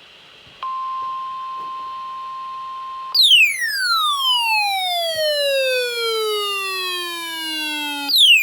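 Weather radio alert tone: a steady pure tone held for about two and a half seconds. It gives way to a louder electronic tone that falls smoothly in pitch from very high to low over about five seconds, and the falling tone starts again from the top near the end.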